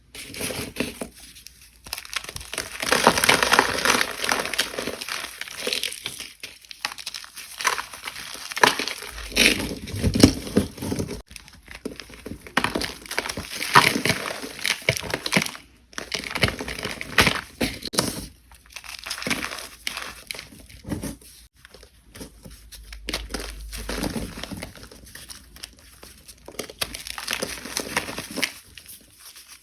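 Gym chalk being squeezed and crushed, a crumbly crackling with squeaks that comes in a string of irregular bouts of a second or more, with short pauses between.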